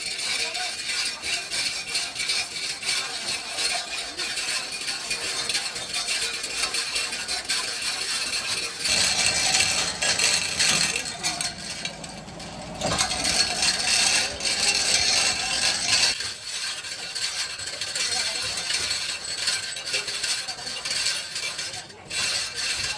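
Dense, rapid metallic clicking and clattering of a working mechanism, louder in two stretches in the middle.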